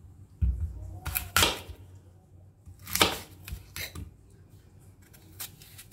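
Kitchen knife cutting through a green apple on a wooden surface: two cuts, about a second in and about three seconds in, with lighter knocks and scrapes of the knife and apple pieces on the wood in between.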